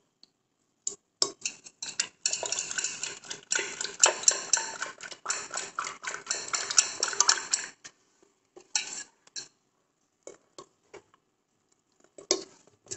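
Hand mixing thick fenugreek-and-rice dosa batter in a stainless steel pot before it is left to ferment: a busy run of stirring strokes and knocks against the steel for most of the first eight seconds, then a few scattered knocks.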